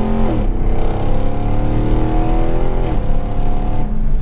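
Ram TRX's supercharged 6.2-litre V8 accelerating hard through an AWE 0FG exhaust, heard from inside the cab. The engine note climbs, drops at an upshift about half a second in, climbs again to a second upshift near three seconds, then rises briefly before falling away near the end.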